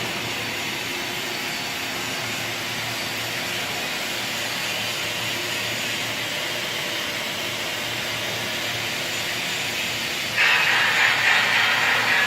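Steady workshop machine hiss; about ten seconds in, a robotic welding arc strikes and runs as a louder, rough, wavering hiss.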